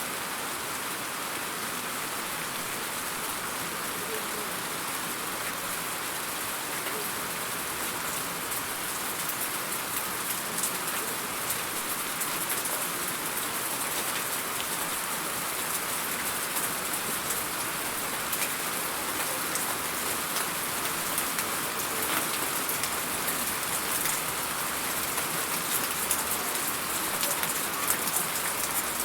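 Steady rain falling, an even hiss, with individual sharp drop hits becoming more frequent and a little louder from about a third of the way in.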